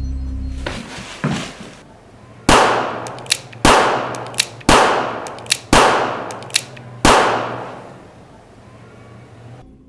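A revolver fired five times, about a second apart. Each shot is loud and sudden with a long echoing tail, and smaller sharp cracks fall between the shots.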